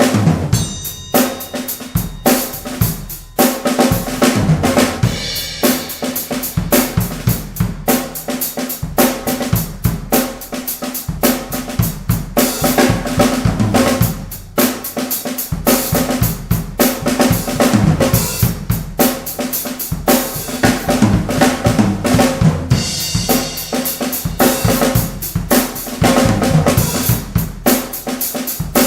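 1970s Pearl fiberglass drum kit played in beats and fills: 22x14 bass drum and 14x10 and 16x16 toms, with snare, hi-hat and cymbals, near continuously with brief gaps at about three seconds in and about halfway.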